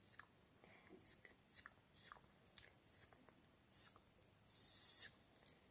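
Close-miked ASMR mouth sounds: a string of short, crisp tongue clicks and lip smacks, with a longer hissing sound about four and a half seconds in.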